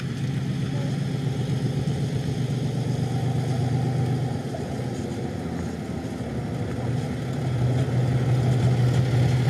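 Dump truck's diesel engine running as the truck drives toward the listener, a steady low hum that grows louder over the last couple of seconds as it draws near.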